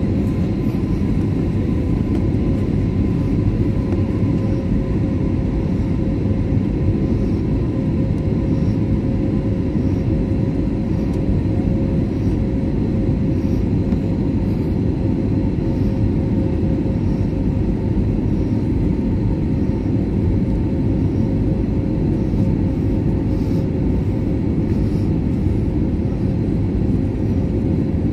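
Jet airliner cabin noise heard from a window seat while descending: a loud, steady rumble of engines and airflow with a faint steady hum tone over it.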